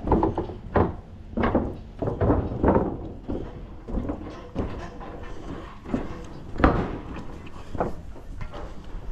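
Footsteps on the wooden plank deck of a building scaffold: irregular hollow knocks and thuds, about one or two a second, as someone walks along it and makes their way down.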